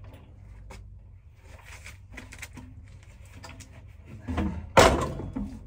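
Knocks and clatter of a 30-gallon water heater tank being handled into a tight cubby, with one loud bang close to the end.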